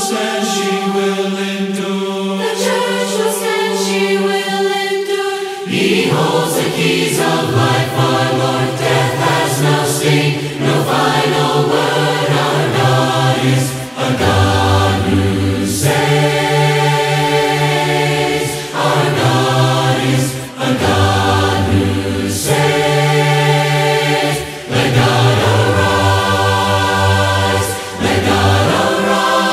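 Group of voices singing a worship song in parts, without instruments. Low bass voices come in about six seconds in.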